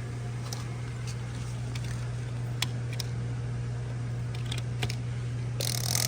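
Steady low machine hum with scattered light clicks and taps, and a short hiss just before the end.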